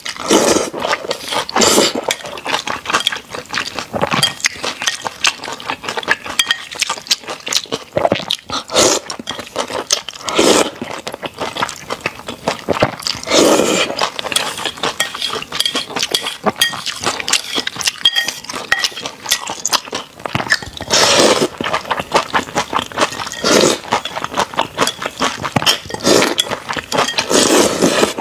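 Close-miked eating of wide flat noodles: slurping and wet chewing, a steady run of mouth clicks and smacks with louder slurps every few seconds.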